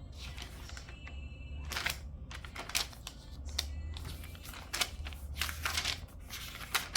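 Pages of a paper planner being turned, several short paper rustles at irregular intervals.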